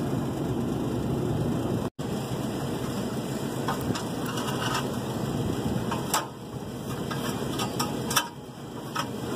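Light metallic knocks and scrapes as a new tube-type heat exchanger is slid into a rooftop gas furnace unit, over a steady low mechanical rumble. The sound drops out briefly about two seconds in.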